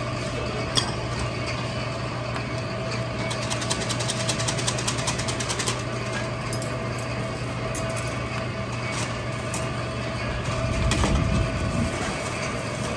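Steady low mechanical hum from the stall's equipment, with a stretch of rapid, even ticking a few seconds in as a bristle brush is worked over the cast-iron egg-cake mold to oil it. A brief swell of low rumble comes near the end.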